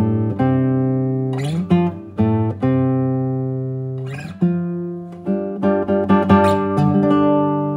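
Background music: a plucked acoustic guitar playing slow chords, each ringing out and fading before the next.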